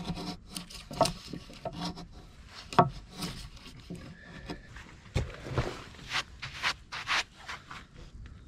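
A hand edge tool paring shavings off a larch beam: irregular scraping strokes of steel on wood, several a second, some louder than others.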